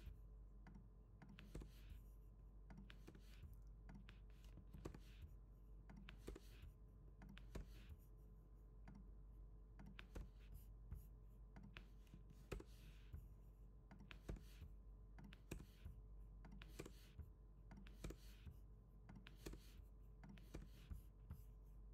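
Faint, irregular clicks of a computer keyboard as text is typed and pasted into a code editor, a few keystrokes at a time with short pauses between.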